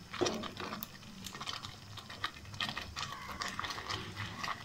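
Wooden spatula stirring thick kheer in a steel pot, giving light, irregular scrapes and taps against the metal.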